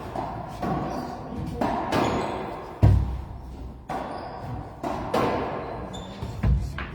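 A racquetball rally in an enclosed court: a string of sharp smacks of racquet on ball and ball off the walls, about one a second, each echoing. Two heavier, deeper thuds stand out near three seconds and near the end.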